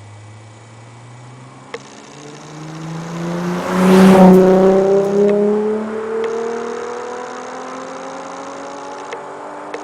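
Nissan VQ35HR 3.5-litre V6 exhaust through an Amuse Titan muffler, accelerating past: engine pitch climbs steadily, loudest about four seconds in, then eases as it pulls away still rising in pitch.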